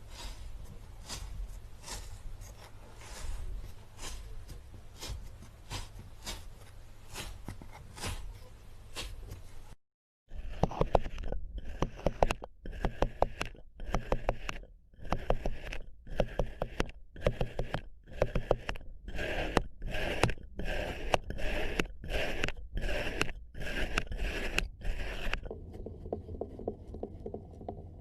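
Crunchy scraping sounds in two stretches. First comes a dense run of fine crackles; after a sudden break about ten seconds in, separate crunching strokes repeat roughly once a second.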